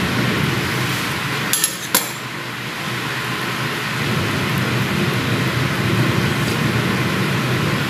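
Pot of sinigang broth at a rolling boil, a steady noisy bubbling throughout. Twice, about a second and a half in, a metal spoon clinks against the ladle.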